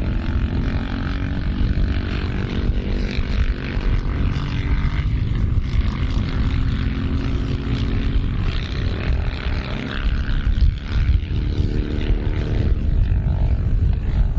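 Britten V1000 racing motorcycle's V-twin engine running on track, the revs falling over the first few seconds and then rising again in the second half.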